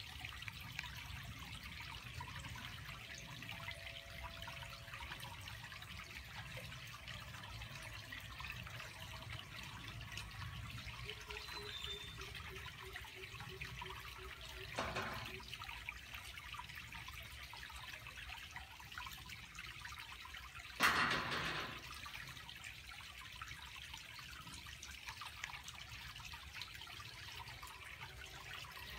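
Rain dripping and trickling steadily, with the faint hum of a GIBIDI automatic swing-gate operator in the middle. The gate leaves knock shut: a light clunk about halfway, then a louder bang about two-thirds through.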